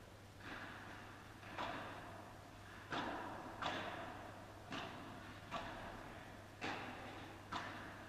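Padel ball being hit by rackets and bouncing during a rally, about eight sharp pops roughly a second apart, each with a short echo off the hall.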